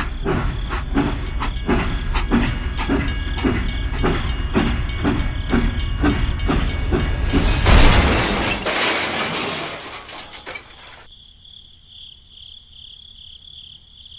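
Rhythmic mechanical chugging at about three beats a second, then a loud hiss about eight seconds in that fades away. After that, only faint, steady, insect-like chirping.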